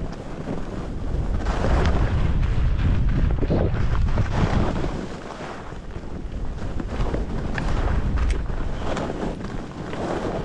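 Wind buffeting the microphone during a downhill run on a ski slope, a rumbling rush that swells from about a second and a half in for a few seconds, dips, and swells again near eight seconds.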